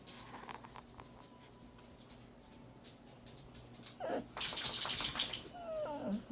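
Pet dogs whining. About four seconds in comes a whine that falls in pitch, then a loud, harsh, noisy sound lasting about a second, then short high whines that drop in pitch near the end.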